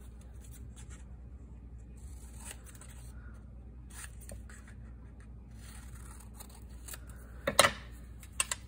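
Paper being handled and reworked by hand: quiet rustles and scrapes with a few short clicks, the loudest a sharp click about seven and a half seconds in.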